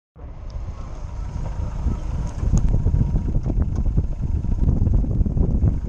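Lada Niva driving off-road: a low engine and drivetrain rumble with frequent knocks and rattles, getting louder over the first couple of seconds.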